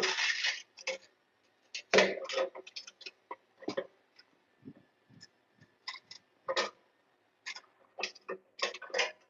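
Irregular short scrapes and clicks of a hand tool cutting around a marked hole in an electrical junction box to enlarge it, the longest stroke at the very start and another about two seconds in.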